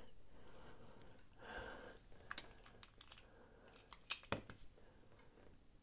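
Faint handling clicks of small folding-knife parts as the knife is reassembled: light rubbing with two sharper clicks, about two and a half and four and a half seconds in.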